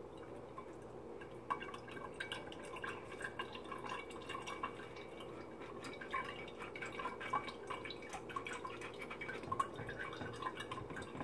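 Heavy syrup draining from a can of fruit cocktail into a glass mason jar, coming out slowly as many small, irregular drips.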